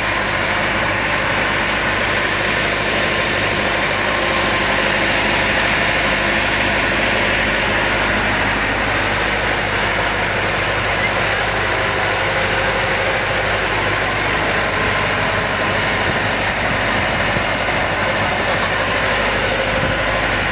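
Engine of a motorized outrigger passenger boat (bangka) running steadily under way. It makes a loud, constant drone that does not change.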